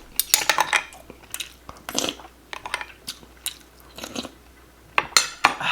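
Close-miked eating sounds of a person chewing, a string of short wet clicks and smacks from the mouth and food.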